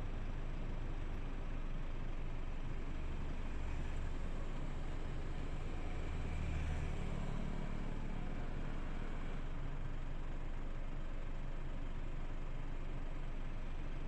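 A distant airliner's engines drone steadily as it climbs away after takeoff. The sound swells slightly about six to seven seconds in.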